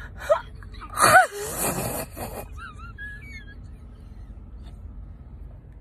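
A woman's strained, breathy vocal cry, a gasp-like groan about a second long that rises and falls in pitch, as she tries to close an eye that dental anaesthetic has left numb.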